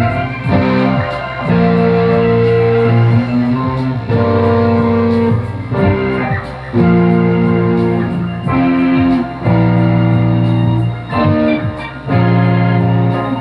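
Guitar music: sustained chords that change roughly every second, with short breaks between phrases.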